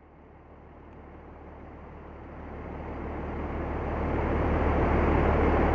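Ocean surf breaking and washing on a beach: a steady rushing noise with a low rumble, fading in and growing louder over the first four seconds or so, then holding level.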